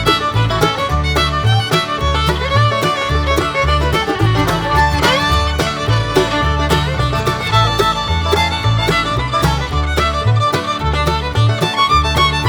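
Upbeat fiddle-led bluegrass-style music with a driving bass line and steady rhythm.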